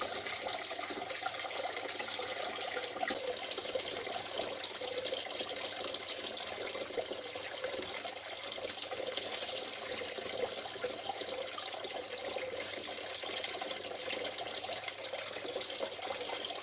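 Small plastic-bottle tabletop fountain running: water falling in three thin streams from the cut bottle into the basin below, a steady splash of running water.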